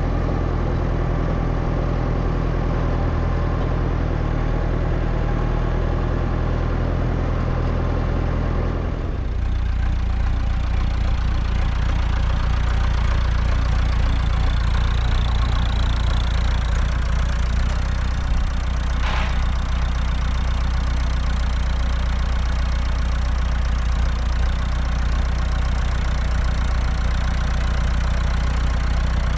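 Massey Ferguson tractor's four-cylinder diesel engine idling steadily. Its sound becomes deeper and less bright about nine seconds in.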